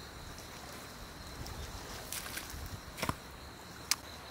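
Hoe striking and scraping wet paddy soil: a few knocks and thuds, the loudest about three seconds in, with a sharp click near the end. A faint steady high tone runs behind.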